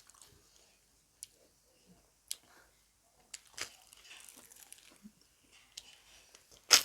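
Close-miked eating of bhatura, a crisp deep-fried puffed bread: sparse crackles and clicks as it is torn and chewed, with the sharpest, loudest crunch near the end.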